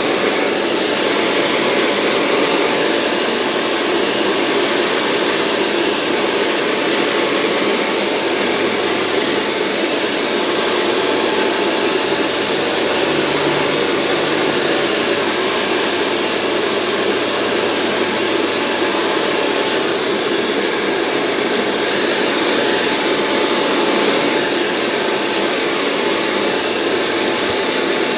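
Handheld hair dryer blowing steadily: a loud, even rush of air with a faint steady whine running through it.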